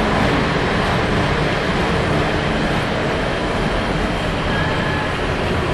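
Lionel O gauge model trains running on three-rail track: a steady noise of wheels and electric motors.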